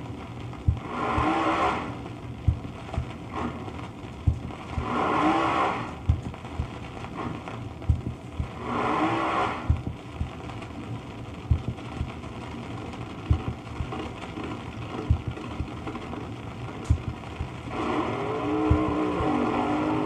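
A vinyl-record recording of a 1969 Mustang funny car's 429 Ford V8: three short bursts of engine revving a few seconds apart, then the engine running on steadily near the end. Under it, surface noise and a sharp click about every two seconds, once a turn, from the damaged cardboard record.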